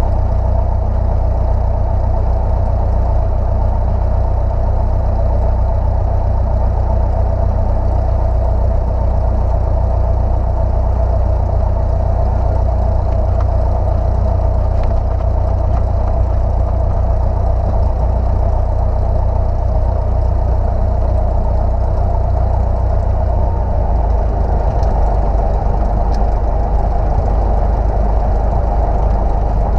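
Light single-engine piston airplane's engine running steadily at low power while taxiing, heard from inside the cockpit; its low note shifts slightly about 24 seconds in.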